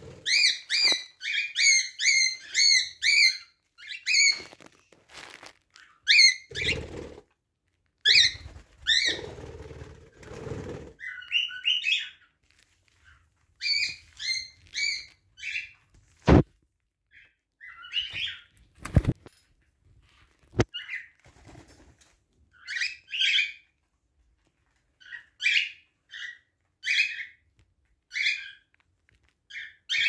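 Small pet parrots chirping in short, repeated calls, in quick runs at the start and in clusters later on. Three sharp taps sound around the middle, with some lower rustling before them.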